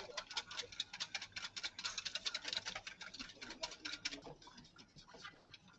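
A whisk beating eggs with salt and pepper in a stainless steel bowl, clicking rapidly against the metal. The clicks thin out over the last second or so.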